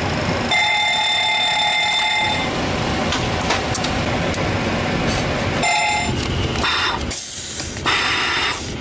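Boeing 737 cockpit fire warning alarm sounding during the fire protection system test: a steady ringing tone for about two seconds starting half a second in, then a shorter one around six seconds in. Underneath runs constant cockpit air and fan noise, with louder bursts of hiss near the end.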